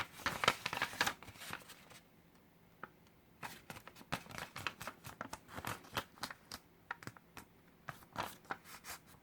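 A sheet of origami paper folded and creased by hand into a square base: a run of crisp crinkles and crease snaps, with a brief pause about two seconds in.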